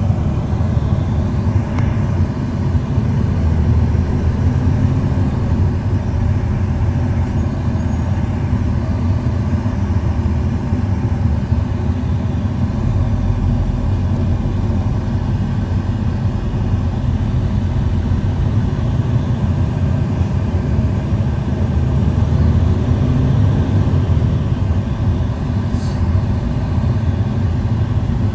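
Steady low rumble of a moving vehicle, like road and engine noise, that stays even throughout.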